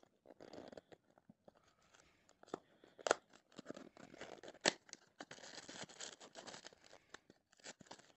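Small cardboard box being cut open at its sticker seal and its flaps pulled apart: faint scraping and rustling of paperboard, with a few sharp clicks and snaps.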